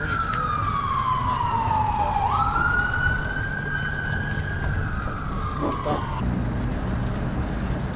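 Emergency vehicle siren wailing in slow falling sweeps: it drops in pitch, jumps back up, drops again and cuts off about six seconds in. A low steady rumble sits underneath.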